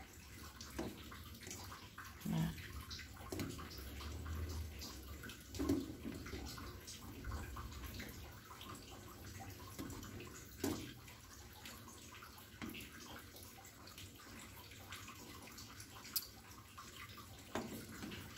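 Quiet sloshing of a just-boiling chocolate milk and agar pudding mixture as it is stirred with a plastic spoon in a stainless steel pot, with a few soft knocks of the spoon against the pot.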